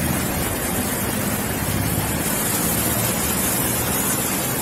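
Steady noise heard through a police body-camera microphone, with a low rumble that fits the patrol car idling beside it.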